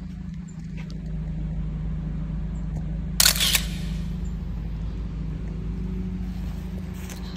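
Steady low hum of a car's engine and road noise inside the cabin, with one sharp click a little over three seconds in.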